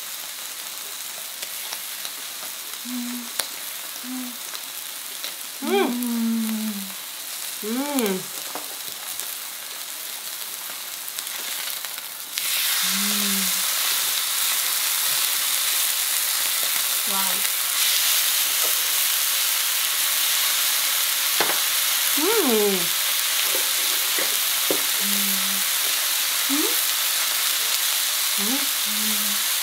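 Steaks sizzling on a hot tabletop grill plate. About twelve seconds in, the sizzle jumps suddenly much louder and stays loud, as a steak is turned over onto its raw side. Short hums and 'mm' sounds from people eating come and go over it.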